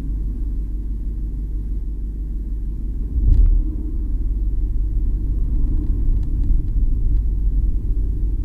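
Low road rumble from inside the trunk of a moving 2018 BMW 750i M Sport (G11), with one thump and click about three seconds in and a few faint ticks a little later. These are the abnormal knocking and creaking noises that the owner traces to the rear suspension.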